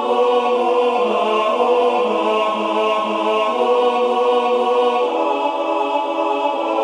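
Choir singing slow, held chords of a choral arrangement, the harmony shifting every second or so.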